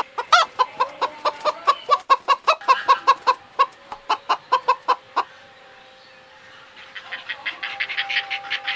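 Fowl calling in a rapid series of short clucking notes, about four a second, that break off about five seconds in; a faster, higher chattering starts near the end.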